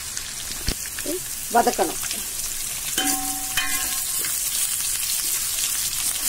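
Cut potato, drumstick and brinjal sizzling in hot oil in a stainless steel kadai while a steel ladle stirs them, with a sharp clink of ladle on pan under a second in. The vegetables are being sautéed with onions.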